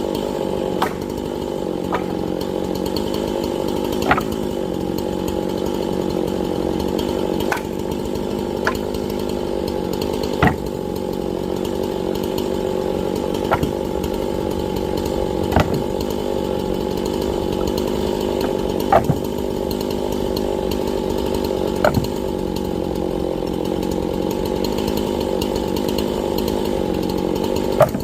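Gasoline chainsaw running steadily while cutting firewood, with a sharp knock every two to three seconds.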